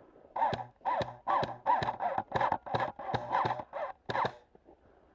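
A crow cawing repeatedly, about ten harsh caws in quick succession, roughly two to three a second, ending near the last second.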